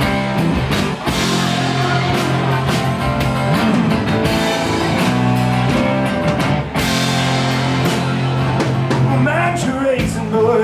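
A band playing the instrumental intro to a country-rock song: guitars holding chords over a steady drum kit beat.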